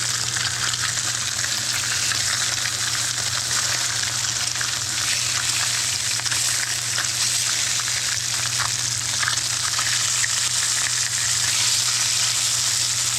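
Skin-on panfish fillets sizzling and crackling steadily in hot oil in a frying pan, the oil running a little too hot.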